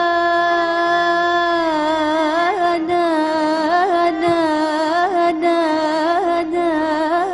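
A woman's voice singing one long held note in Arabic tarab style. The note is steady for about two seconds and is then ornamented with small quick vocal turns, roughly one every two-thirds of a second.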